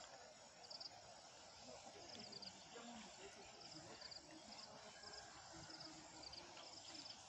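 Faint outdoor ambience: a low hiss with soft, high chirps in quick little groups, recurring about once a second.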